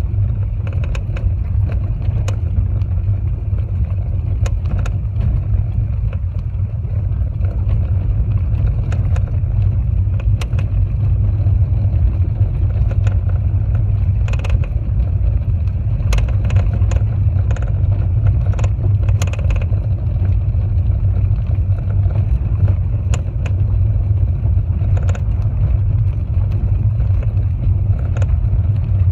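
Mitsubishi Lancer 9 driving, with a steady low road rumble and irregular sharp knocks from the shock-absorber strut: a worn, knocking strut.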